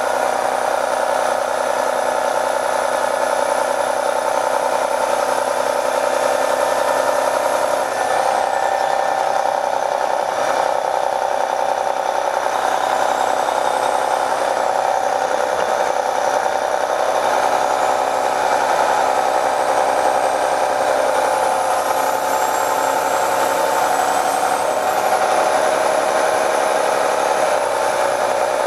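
MCI D4500 coach's Detroit Diesel Series 60 engine running, with a high whine that rises and falls several times. Heard from inside the bus, on a recording filtered to remove passenger talk, which makes it sound a little odd.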